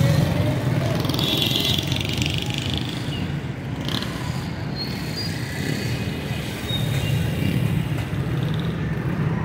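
Street traffic: motorcycle and car engines running and passing, a steady low rumble with a brief higher-pitched sound about two seconds in.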